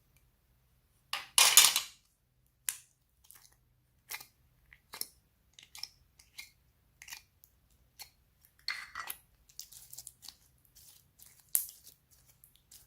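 Slime being worked by hand, giving irregular wet clicks and crackles. The loudest is a short burst about a second and a half in, and there is a denser run of crackling around nine seconds.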